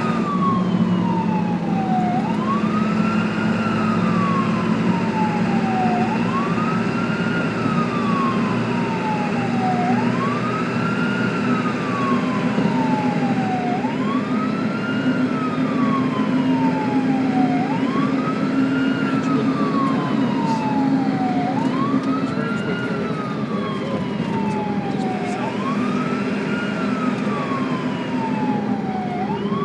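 Ambulance siren sounding a slow wail: each cycle sweeps quickly up in pitch and then slides slowly back down, repeating about every four seconds, over a steady low rumble.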